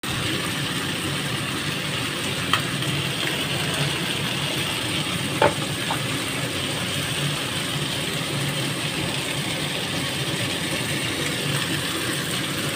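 Beef and bell peppers sizzling in a nonstick frying pan over a steady low hum, with a spatula clacking against the pan twice, about two and a half and five and a half seconds in.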